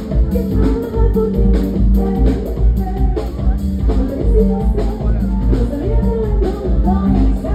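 Live band playing an instrumental passage over the outdoor PA: drum kit and hand percussion keep a steady beat over a heavy bass line, with keyboard and melody lines on top.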